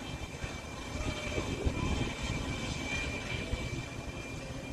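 Turbofan engines of a twin-engine business jet running on the runway: a steady high-pitched whine over an uneven low rumble.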